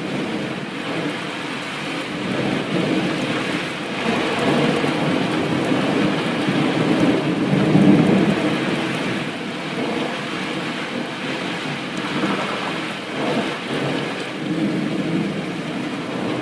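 Thunderstorm: steady rain hiss with thunder rumbling in slow swells, loudest about eight seconds in.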